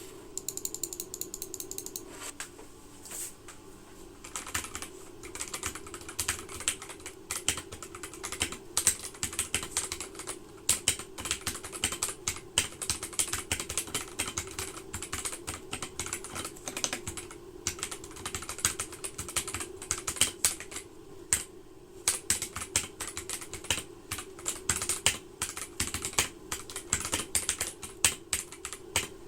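Typing on an Akko 3068B mechanical keyboard with ASA-profile keycaps and smooth, unlubricated switches: a rapid stream of keystroke clacks that pauses briefly near the start. A steady low hum runs underneath.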